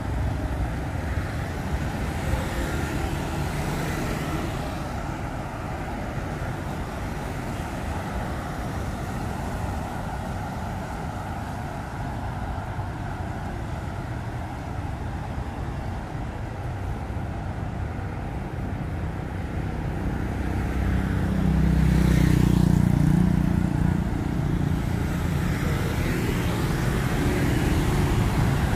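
Road traffic on a bridge: motorbikes and cars passing close by in a steady stream, with one louder vehicle pass about three-quarters of the way through.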